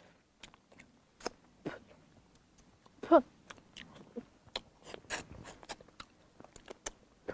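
Close-up mouth sounds of someone eating a cooked fish tail: scattered small clicks, smacks and chewing, with a short "mm" about three seconds in.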